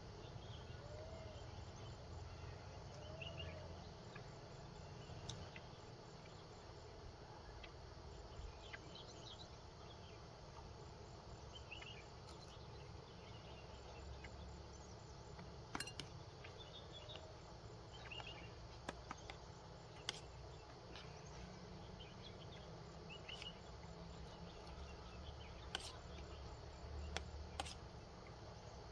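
Crickets chirping faintly in a steady, fast pulsing trill, with short bird chirps now and then and a few sharp clicks.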